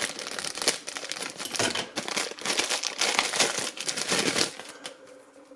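Packaging crinkling and rustling as it is handled, with a few sharper crackles; it stops about four and a half seconds in.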